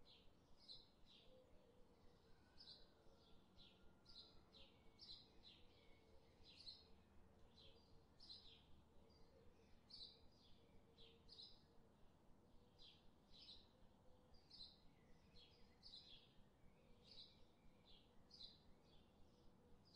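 Faint birdsong: short, high chirps repeated irregularly, about two a second, over a faint low steady hum.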